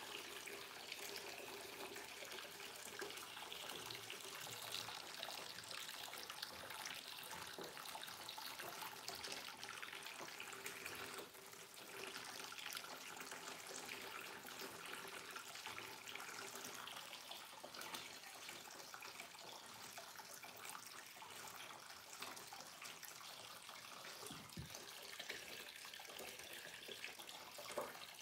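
Aquarium water running and trickling steadily.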